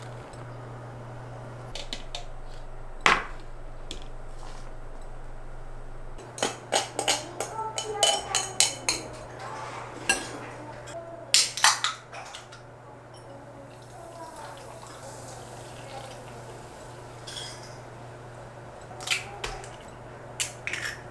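Tempura batter being made in a glass mixing bowl: utensils clinking and tapping against the glass in a cluster of sharp knocks, sparkling water and water poured in over the flour, and an egg cracked into the bowl near the end with a few quick taps, over a low steady hum.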